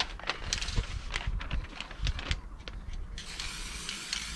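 Aerosol spray-paint can spraying black paint: a series of short hissing bursts, then a steadier hiss from about three seconds in. A low rumble runs underneath.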